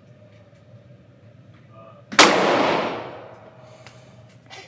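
A single loud gunshot about two seconds in, with a long echoing tail that dies away over about a second.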